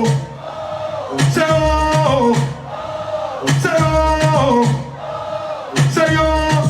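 Live dancehall music: a sung phrase that falls in pitch repeats about every two seconds over a thudding bass beat, with a crowd singing along.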